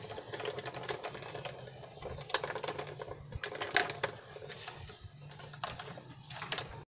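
Gloved hands twisting electrical wires together into a splice, giving irregular light clicks and rubbing, with a few sharper ticks near the middle.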